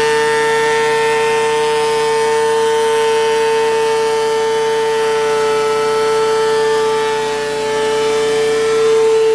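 Thickness planer running with a steady, loud whine, feeding a 2x6 board through its cutterhead.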